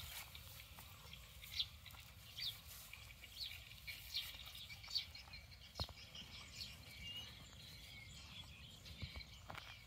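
Faint, short bird chirps, roughly one every second, with a single soft knock a little before six seconds in.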